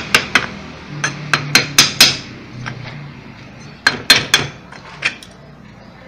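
Sharp metallic hammer taps on a washing machine's drive pulley, struck to work it loose from the transmission shaft. The taps come in short bursts: a run of about six in the first two seconds, a few more around four seconds in, and a last one near five seconds.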